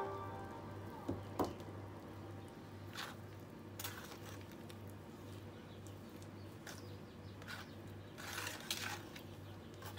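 A metal spoon stirring water into plaster of Paris powder in a plastic tub, with irregular scrapes and clinks against the tub and a short run of wet stirring noise near the end. Just over a second in come two sharp knocks, the loudest sounds in the stretch, as the emptied drinking glass is set down on the table.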